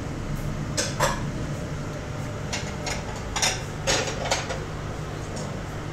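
Kitchenware clinking and clattering as ceramic bowls and steel pots are handled: a string of sharp, separate knocks over a steady low hum.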